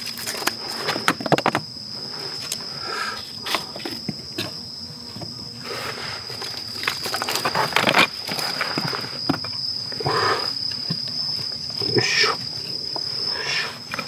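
Insects calling in one steady, high, unbroken trill. Over it come irregular wooden knocks and clatters as split kindling sticks are laid crosswise onto a fire lay, in clusters about a second in, about eight seconds in, and near the end.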